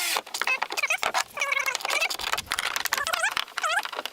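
Cordless power drill driving a machine screw into an aluminum kayak track in short trigger pulses: the motor whine rises and falls several times, with clicks between the pulses.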